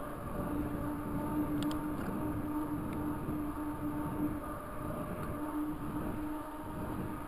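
Raleigh Talus 29er mountain bike rolling along an asphalt path: a steady tyre hum over a low rumble, breaking off briefly now and then.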